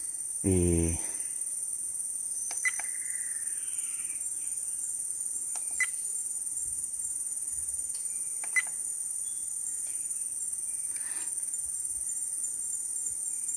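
Steady high-pitched chorus of crickets or other insects, unbroken throughout. A short voice sound comes about half a second in, and a few sharp clicks with brief tones are heard about three seconds apart.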